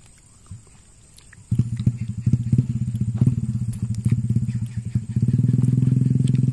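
A small engine starts up about a second and a half in and runs unevenly, then settles into a steadier, louder drone about five seconds in.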